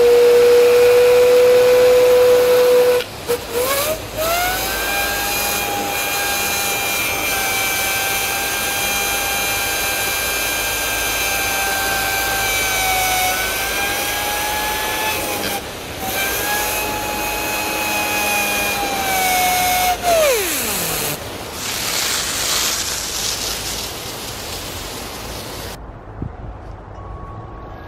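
Water-driven 3D-printed bearing cleaner whining as a jet from a garden hose nozzle spins it and its greased bearings, over the hiss of the spray. The whine steps up in pitch a few seconds in, holds with brief breaks, then glides down steeply as the spinner winds down about two-thirds of the way through.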